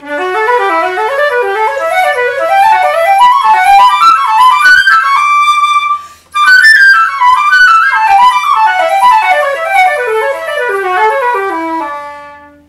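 Solo concert flute playing fast runs that climb to a held high note, a quick breath about six seconds in, then runs that fall back down and end on a long low note that fades away.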